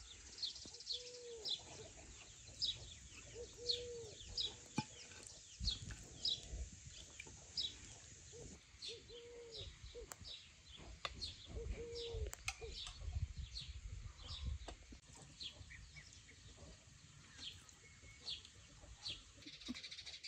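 Small birds chirping over and over in short high notes, with a lower arching call repeated about five times in the first twelve seconds. A couple of brief low rumbles come in about six seconds in and again around thirteen to fifteen seconds.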